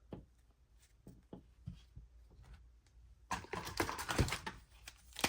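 Trading cards handled with a few faint soft clicks, then about three seconds in a dense crinkling and rustling starts as a plastic card-pack wrapper is handled and torn into.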